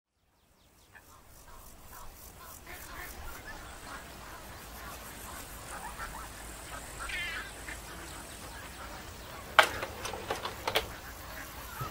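Outdoor ambience fading in over a low steady hum, with ducks quacking and short bird calls scattered through it. Two sharp knocks about a second apart near the end are the loudest sounds.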